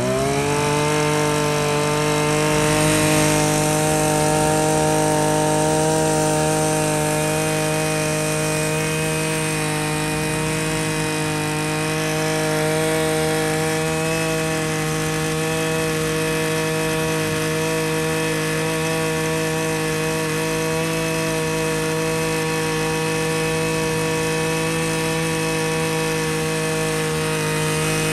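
26 cc Maruyama two-stroke brush cutter engine catching after a pull start: its pitch climbs quickly in the first moment, then it runs at a steady, even speed.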